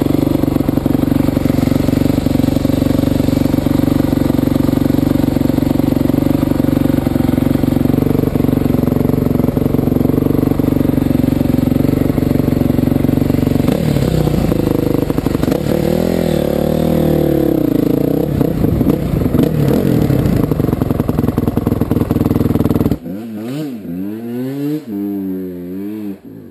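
Dirt bike engine running at a steady idle, then revving up and down as the bike rides along the trail, from about halfway in. Near the end the loud engine sound cuts off suddenly, leaving a fainter engine rising and falling in pitch.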